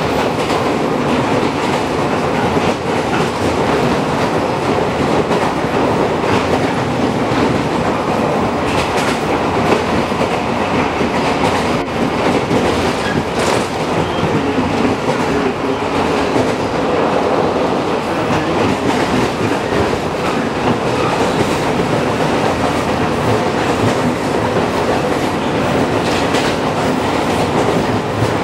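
Running sound of a JR Kyushu 415 series 500-subseries electric train at speed, heard inside the passenger car: a steady rumble of wheels on rail with a few faint clicks of rail joints along the way.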